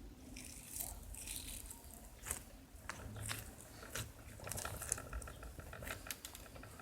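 Slime being squished and worked by hand, giving irregular small crackles, clicks and squishy pops.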